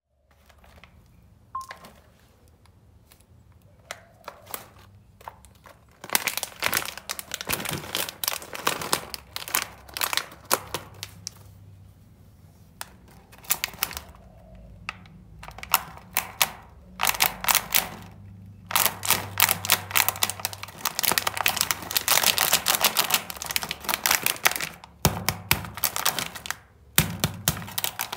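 Plastic snack packet of coated peanuts crinkling and crackling in irregular bursts as hands squeeze and handle it, starting about six seconds in after a quiet opening.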